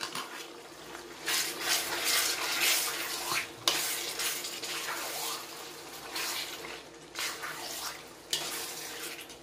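A metal spoon stirring and scraping chicken pieces around a pan of sizzling oil and spices, in irregular strokes over a steady frying hiss; the pan is on high heat.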